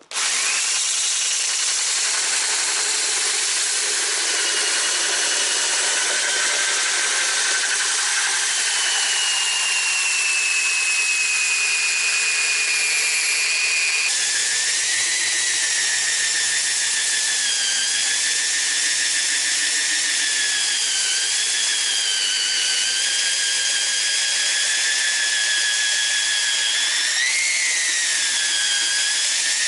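Handheld rotary tool spinning a homemade plywood sanding disc, a steady high whine that starts abruptly as the tool is switched on. Partway through, the pitch shifts and then wavers up and down.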